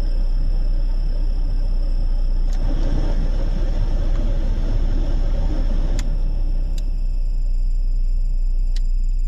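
Car heater blower motor running with a steady high-pitched whistle over a low rumble of air. The rush of air gets louder for a few seconds from about two and a half seconds in, with sharp clicks when it starts and stops and a couple more later.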